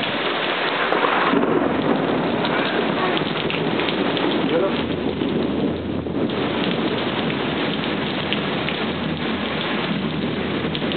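Heavy rain pouring steadily in a thunderstorm, with thunder rumbling under it.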